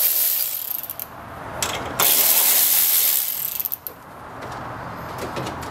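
Power ratchet with a 10 mm socket spinning out the bolts that hold an engine's air intake tube. It runs in two bursts, one stopping about a second in and another from about two seconds to nearly four seconds in, followed by lighter clicks and rattles of the tool and parts.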